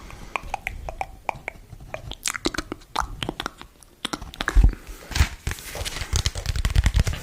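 Close-miked chewing and crunching: a run of sharp, crisp clicks that grow louder and heavier, with low thumps, from about halfway through.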